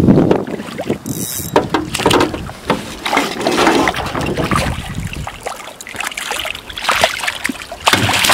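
A hooked brook trout thrashing and splashing at the water's surface beside an aluminium boat, with irregular sloshing and scattered sharp knocks.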